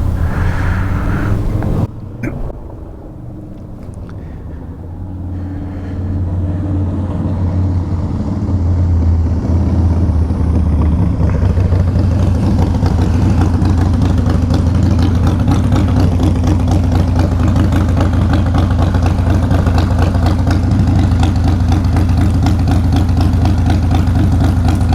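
Harley-Davidson Softail Fat Boy's V-twin engine running close by, building over the first several seconds and then settling into a steady, evenly pulsing idle.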